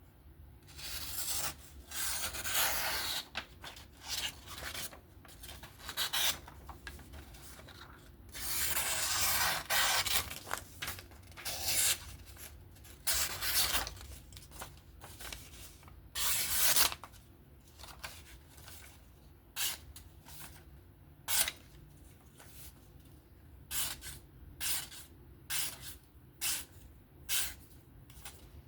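Nitro V steel knife blade drawn over a fine-grit sharpening surface in repeated scraping strokes while the edge is refined. There are a few long strokes in the first half, then shorter strokes at about one a second.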